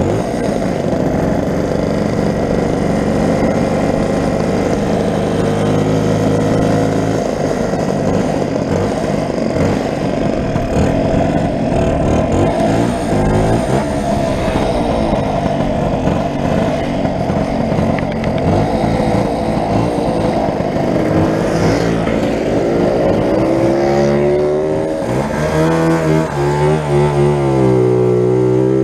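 Lambretta scooter's two-stroke single-cylinder engine running under way, with wind rushing over the microphone. Near the end the engine note rises and falls as the throttle is worked.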